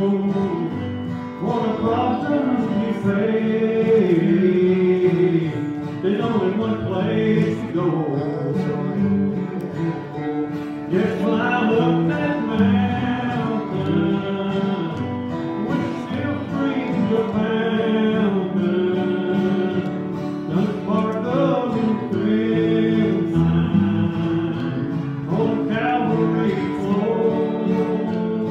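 A man singing a slow gospel song, accompanied by strummed acoustic guitar and a second guitar.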